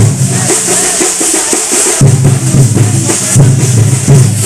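Loud drumming with a fast, dense beat.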